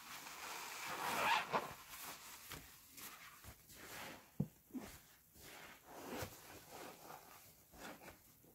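Foam-laden sponges squeezed and pressed by gloved hands in a tub of soapy water: wet squelching with crackling lather, a hissy squeeze about a second in, then scattered small wet clicks and crackles, one sharper click near the middle.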